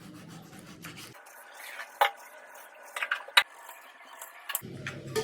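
Sharp clinks and knocks of dishes and utensils being handled, a handful of separate hits with the loudest about two seconds in and another just past three seconds.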